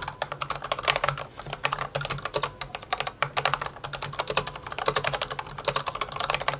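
Corsair K60 PRO RGB SE mechanical keyboard with Cherry Viola switches and doubleshot PBT keycaps being typed on quickly, a dense run of key clacks. The reviewer finds the case has strong hollow resonance (case ping) under typing.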